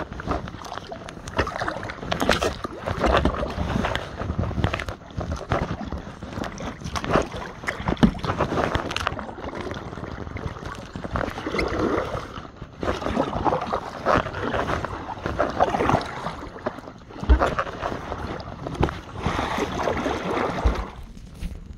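Kayak paddling: the paddle blades dipping and splashing in irregular strokes, with water sloshing against the kayak. A couple of dull knocks come about two-thirds of the way through and near the end.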